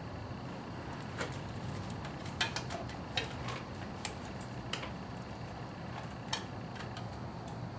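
Scattered light clicks and taps, about ten at irregular spacing, over a steady low hum.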